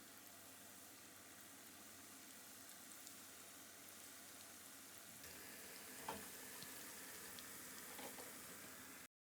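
Pakoras frying in hot oil: a faint, steady sizzle with small crackles. It grows slightly louder about five seconds in, with a light knock around six seconds, and stops abruptly near the end.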